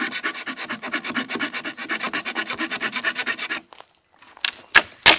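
Quick rhythmic rasping of a blade cutting into a dead resinous branch, several strokes a second, opening it up to find fatwood; it stops about three and a half seconds in and is followed by a few sharp cracks of wood near the end.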